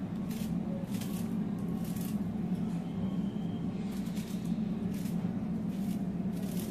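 Small kitchen knife cutting cabbage held in the hand, short cuts roughly once a second, over a steady low hum.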